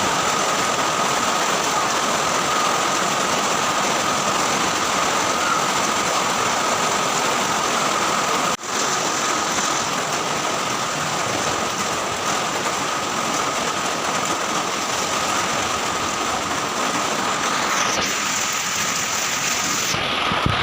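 Heavy rain falling, a steady dense hiss with a faint steady tone running through it; it cuts out for a moment about eight and a half seconds in.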